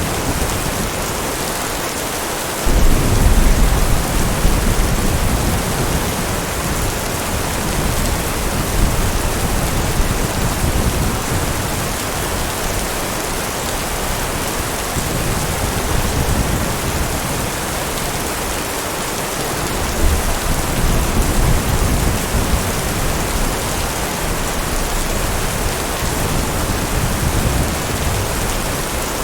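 Steady heavy rain falling, with low rolling thunder that swells up about three seconds in and again about twenty seconds in.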